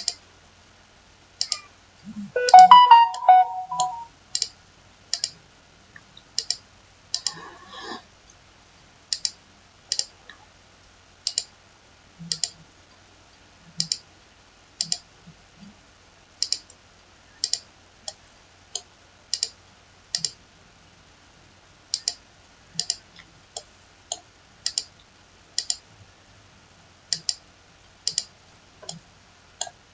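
Computer mouse clicking repeatedly, a sharp click about once a second, as OK is pressed over and over to insert one copy after another. About two and a half seconds in, a brief burst of pitched tones is the loudest sound.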